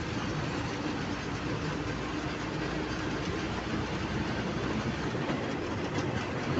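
Steady road and engine noise heard from inside a moving road vehicle.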